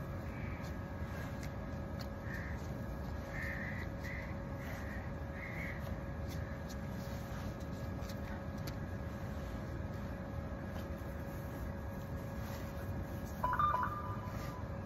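Steady hum of outdoor city background at a train station, with a run of short, evenly spaced call-like sounds in the first six seconds and a brief double beep near the end.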